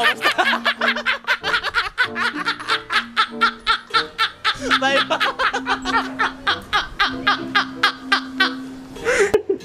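Men laughing hard, a fast, nearly unbroken run of ha-ha's, over background music with held low notes.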